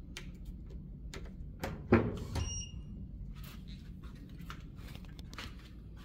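Small clicks and knocks of objects being handled over a low steady hum, with one sharp clink about two seconds in that rings briefly.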